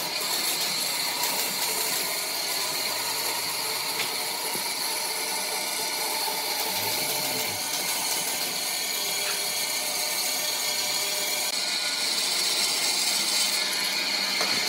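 Bandsaw running steadily, its blade cutting a curve through a thick slab of green wood with the bark on.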